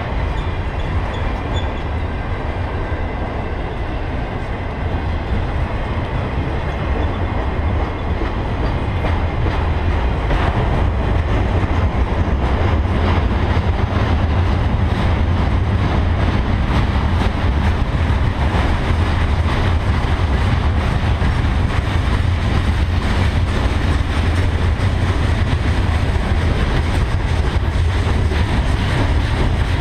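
Freight cars of a Canadian Pacific train rolling past: a steady rumble of steel wheels on rail, with quick clicks of wheels over rail joints. It grows a little louder about ten seconds in.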